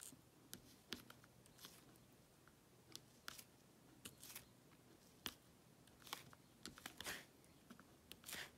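Faint, irregular small clicks and taps of a diamond painting drill pen picking up square drills from a plastic tray and pressing them onto the canvas.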